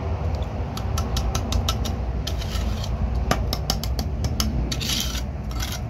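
Steel bricklaying trowel tapping and scraping on hollow ceramic bricks and mortar as a brick is set into the wall: a quick run of sharp clicks and taps, over a steady low rumble.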